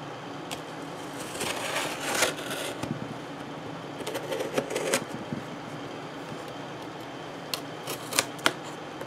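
Knife blade slitting the packing tape along the seam of a cardboard box: two spells of scratchy rustling, then a few sharp clicks near the end.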